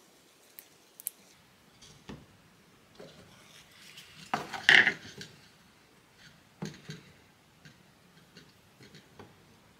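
Light clinks and knocks of a stainless steel glue pot and small tools being handled on a workbench, with a brief louder metallic clatter about halfway through.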